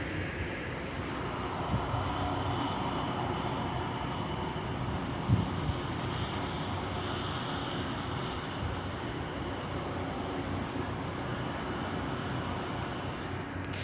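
Steady rumble of a moving vehicle with wind-like noise over it, and a brief knock about five seconds in.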